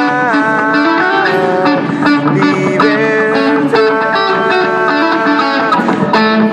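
Electric guitar played through a small Line 6 combo amp: sustained notes and chords held for a second or more, with a few bends and changes between them.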